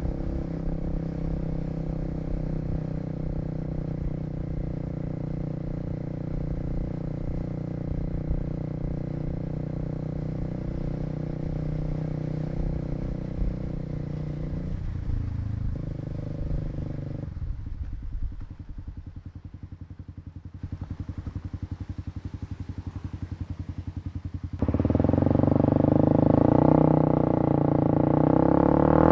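Kawasaki KLX250's single-cylinder engine running under way at a steady speed, then easing off and ticking over at idle with an even pulse from about 17 seconds in. About 25 seconds in, a much louder steady droning sound with a strong pitch sets in suddenly.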